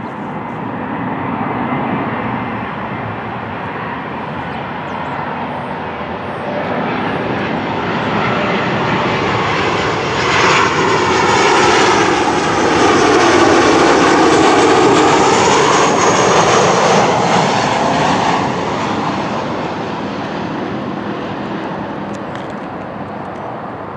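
Boeing 737 jetliner on final approach with gear down, flying low overhead: its jet engine noise builds steadily, is loudest about halfway through, then falls away with a whine that drops in pitch as it passes and fades toward the end.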